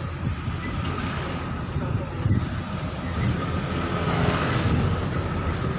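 Running noise of a moving tourist tram, heard from on board: a steady low rumble of motor and wheels with wind rush. A louder rushing noise swells from about three seconds in, as a motor scooter goes past.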